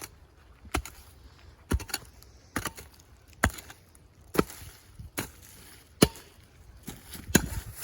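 Pick axe striking into clay and leaf-covered ground in steady repeated blows, about one a second.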